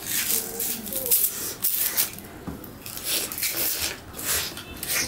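Raw sugar cane being bitten, its rind torn off with the teeth and the fibrous stalk chewed, making irregular crunching and tearing sounds.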